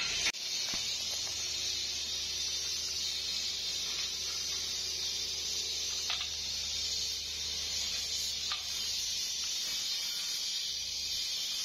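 A steady hiss over a low hum, with a couple of faint metallic clinks as short steel pipe pieces are picked up and set down.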